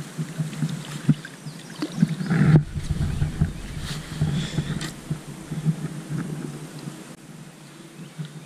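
A hooked bass splashing and thrashing at the surface beside a boat and being swung up out of the water, with the loudest splash about two seconds in. A steady low hum runs underneath.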